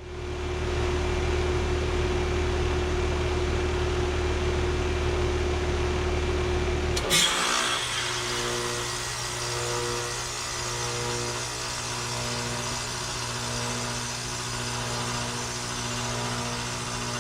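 2018 Carrier Sentry heat pump outdoor unit running steadily. About seven seconds in, a sudden sharp whoosh marks the reversing valve shifting as the unit goes into defrost. After it the deep hum drops away and a different, steadier hum carries on.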